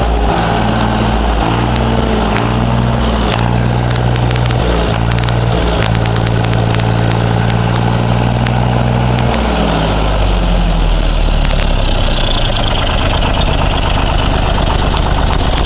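Universal 445-DT tractor's diesel engine running. Its pitch shifts up and down several times, then settles to a lower, steady note about ten seconds in.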